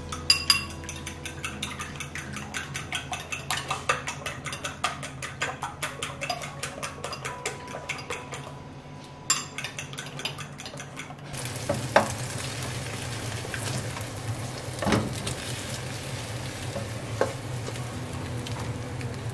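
A metal utensil beating raw eggs in a ceramic bowl, clicking rapidly against its sides at about four to five strokes a second. After about eleven seconds this gives way to the eggs sizzling steadily in a hot nonstick frying pan, with a few sharp knocks of a utensil on the pan.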